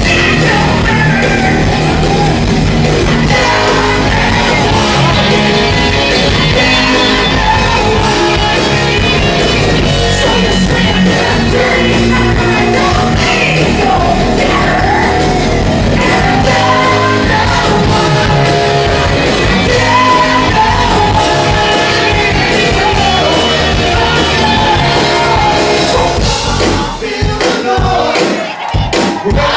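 Live rock band playing: amplified electric guitars, bass and drums under a sung lead vocal. Near the end the song breaks up into a few separate hits as it closes out.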